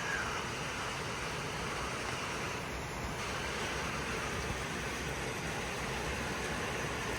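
Steady hiss of rain falling on flooded ground and water.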